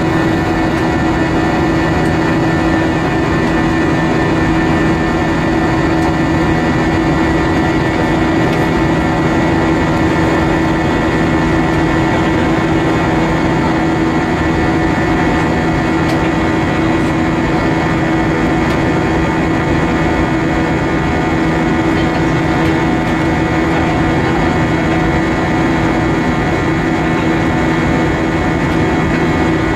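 Airbus A320-232 heard from inside the passenger cabin, its IAE V2500 engines running: an even, unbroken rush of noise with several steady hums held over it.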